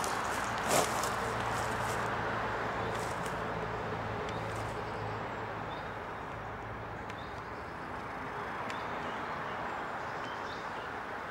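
Outdoor background: a steady hiss with a low hum that fades out about halfway, a single knock about a second in, and faint, short high chirps scattered through the second half.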